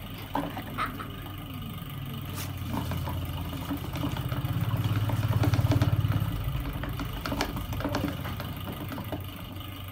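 A small motor humming steadily, swelling louder around the middle and easing off again, with scattered light clicks and taps.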